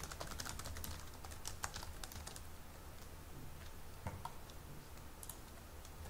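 Typing on a computer keyboard: quick runs of key clicks, densest in the first two seconds, then a few scattered keystrokes, over a low steady hum.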